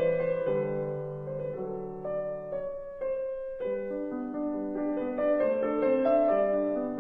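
Piano music: a gentle melody over sustained chords, thinning briefly to a single held note about three seconds in before the chords return.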